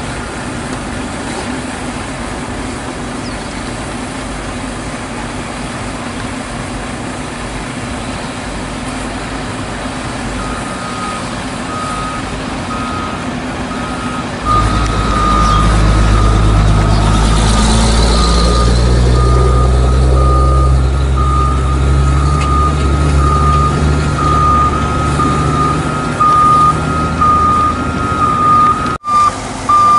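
Heavy diesel truck engine running, which gets much louder about halfway through and steps up and down in pitch, while a reversing alarm beeps steadily from about a third of the way in nearly to the end. Before that there is a steady low engine hum.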